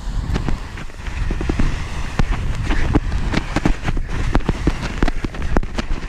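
Footsteps crunching and sliding in soft snow on a steep descent, with trekking poles planting, making a run of quick irregular crunches. Wind buffets the microphone with a low rumble.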